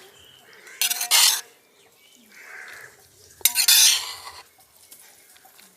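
Metal utensil scraping and clattering against a metal cooking pot: two loud scrapes, about a second in and about three and a half seconds in, with a softer one between them.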